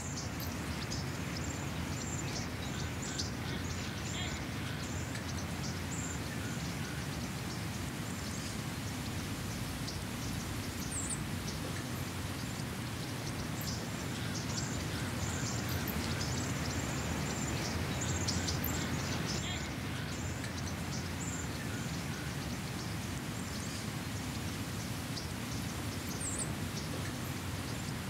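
Outdoor ambience: small birds chirping in quick, high-pitched calls over a steady low rumble.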